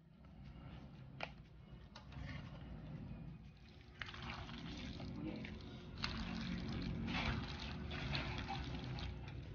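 A spatula stirring cooked macaroni through mayonnaise in a wide pan: wet squishing and scraping, with a sharp click about a second in, louder from about four seconds in.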